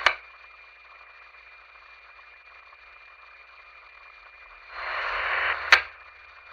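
Police radio scanner between transmissions: a sharp squelch click, then low static hiss with a faint steady whine. About five seconds in, a channel keys up without a voice, giving a second of louder static that ends in a sharp click.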